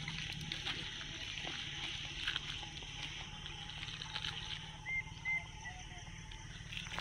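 Open-air outdoor ambience: a steady hiss with two short, high chirps close together about five seconds in.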